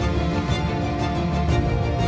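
Background music with held notes and a steady beat, about two beats a second.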